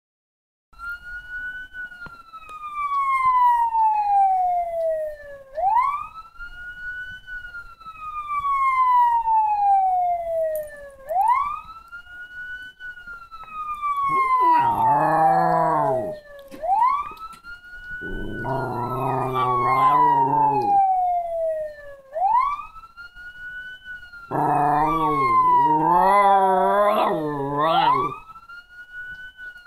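A recorded siren wails in repeating cycles, each a quick rise then a long slow fall, about every five and a half seconds. A Jack Russell–Chihuahua mix (Jack Chi) dog howls along with it in three wavering bouts, starting about halfway through.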